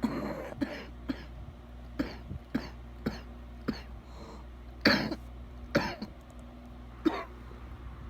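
A person with a bad wet cough coughing repeatedly: about ten short coughs, irregularly spaced, the loudest about five seconds in.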